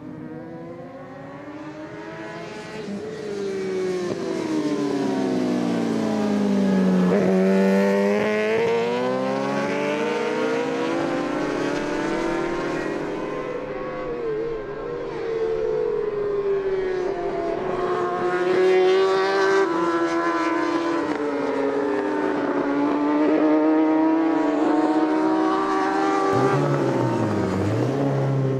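Racing superbike engines at high revs, the pitch gliding up and down as the bikes accelerate, change gear and pass. Near the end a lower, deeper engine note takes over.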